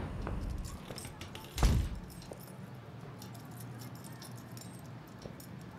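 A single heavy thump about one and a half seconds in, followed by faint, scattered crinkling and light clicking.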